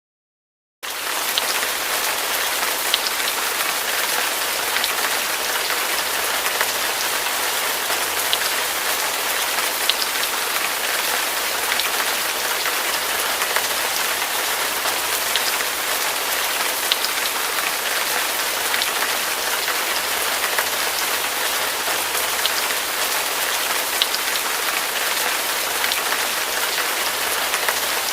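Heavy rain falling steadily, an even hiss with scattered sharp drop ticks, starting abruptly about a second in.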